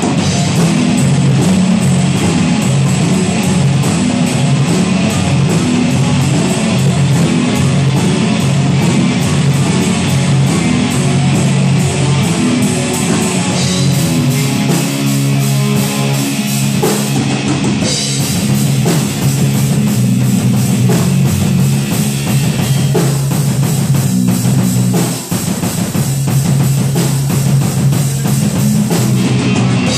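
A heavy metal band playing live: electric guitars and bass through amplifiers, with keyboard and drums, loud and continuous, with a momentary break about three-quarters of the way through.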